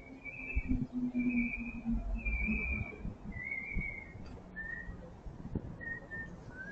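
A man whistling a melody by mouth, a series of held notes that glide up and down in pitch. After about four seconds the notes become shorter and fainter.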